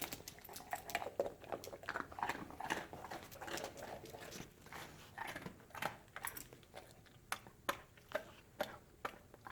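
Dog chewing and crunching a treat: faint short crunches that come in quick runs, then space out to a few a second in the second half.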